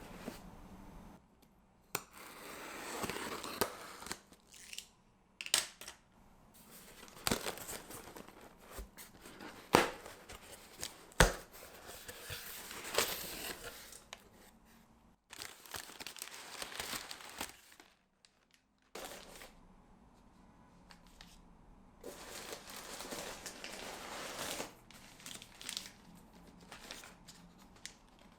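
A package being unboxed by hand: tape and packaging tearing and crinkling, with sharp clicks and knocks as things are handled. The sound comes in several short stretches that break off abruptly.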